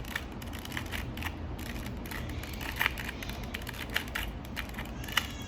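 Plastic clicks and rattles of a 2x2 Rubik's cube being twisted by hand, irregular layer turns as it is scrambled.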